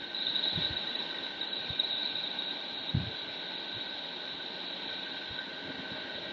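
Space 'planet sound' from NASA: spacecraft-recorded radio and plasma emissions turned into audio. It is a steady hissing drone with two held high tones and a few short low thuds, the strongest about three seconds in.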